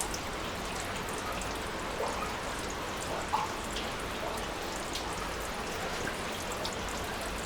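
Steady rush of water from a partly frozen waterfall, with scattered small drips and ticks.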